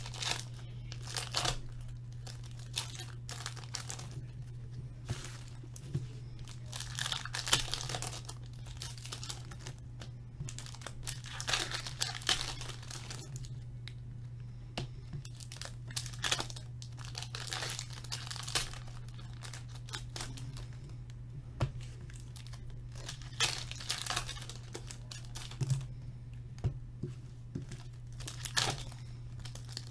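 Plastic trading-card pack wrappers being torn open and crinkled by hand, with cards handled between, in irregular bursts over a steady low hum.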